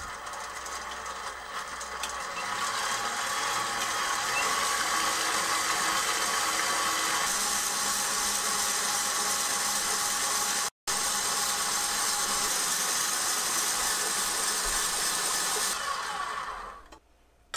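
KitchenAid 7-quart Pro Line stand mixer running with its wire whip beating cream in the steel bowl: a steady motor whine that gets louder over the first few seconds as the speed is turned up. It winds down and stops about a second before the end.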